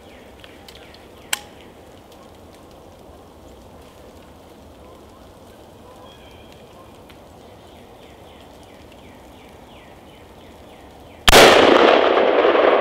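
A single rifle shot from a Colt AR-15 firing .223 Remington rounds, sudden and loud about eleven seconds in, its report trailing off in a long echo. A faint sharp click about a second in.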